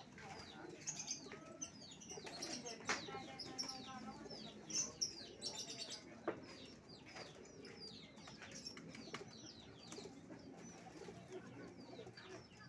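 Domestic pigeons cooing beneath a steady stream of short, high, falling bird chirps, with a few sharp knocks.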